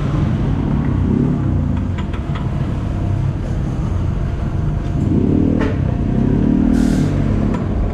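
A motor vehicle engine over a steady low rumble, its pitch rising and falling back twice, with a few light clicks and a short hiss near the end.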